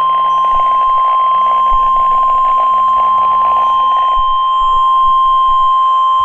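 NOAA Weather Radio warning alarm tone: one loud, steady, high single tone sounded before a tornado warning is read.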